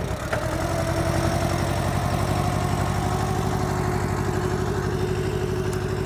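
Massey Ferguson tractor's engine running steadily, with an even low firing beat and a faint steady whine above it.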